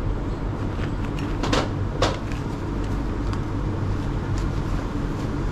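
Metal spoons clinking against earthenware pots and a ceramic bowl as bean toppings are scooped, with two sharp knocks about half a second apart and a few lighter ticks, over a steady low rumble.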